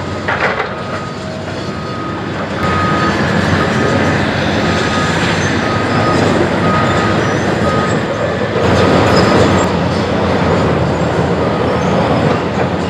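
Demolition excavators, a Cat 345C among them, running their diesel engines and hydraulics while working through broken concrete, with a heavy rumble and clatter that grows louder about two and a half seconds in. A high beep repeats at a steady pace through roughly the first eight seconds.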